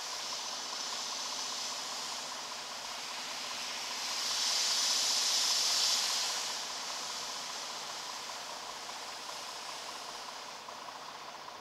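Water spray from an automated truck wash hissing against a semi truck's windshield and cab, heard from inside the cab. The spray grows louder from about four to six seconds in, then slowly fades as the truck moves on through the tunnel.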